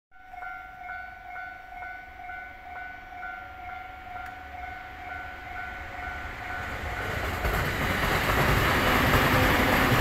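Japanese level-crossing warning bell dinging about twice a second as a train approaches. From about seven seconds in, the train's running noise swells, grows loud and drowns out the bell as the train passes the crossing.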